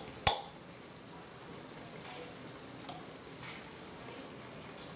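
A metal spoon clinks once against a steel tiffin box while ghee is smeared inside it, then a faint steady sizzle of the thickening milk mixture cooking in the pan.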